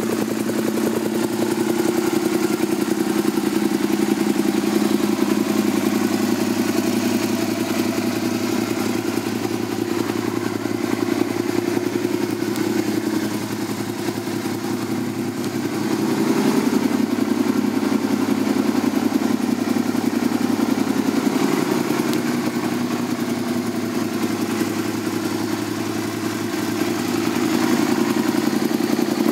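A 2008 Suzuki SV650S's 645 cc V-twin engine, fitted with a Leo Vince aftermarket exhaust, idling steadily. Its level dips slightly twice along the way.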